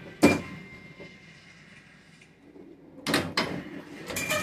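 Gottlieb Golden Arrow pinball machine in play: a sharp mechanical clack about a quarter-second in, a quieter stretch, then a rapid cluster of clacks about three seconds in and again near the end, some with a brief electronic tone from the sound board.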